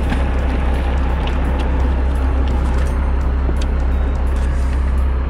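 Steady low drone of a fishing boat's engine running at sea, with wind and water noise over it and a few faint clicks.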